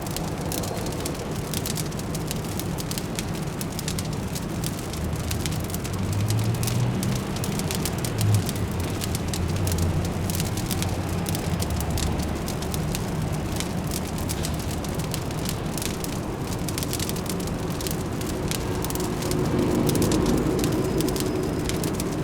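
Wood fire crackling with many small, irregular pops, layered over a low, steady city hum of distant traffic. The rumble swells for a few seconds about a third of the way in and again near the end.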